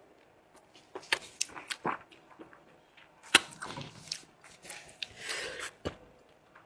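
Close-up eating sounds of gnawing on a lamb leg bone: scattered sharp clicks and cracks of teeth against bone, the loudest about three seconds in, with short stretches of sucking noise between them.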